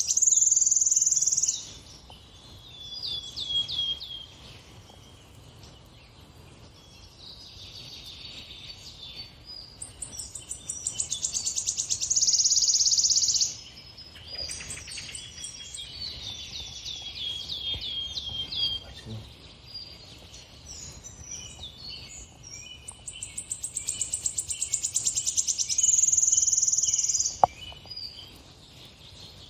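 Birdsong from a bird video playing on a television: a repeating phrase of a fast buzzy trill, a high steady note and then a run of short falling notes, coming round about every twelve seconds. A single sharp tap sounds near the end.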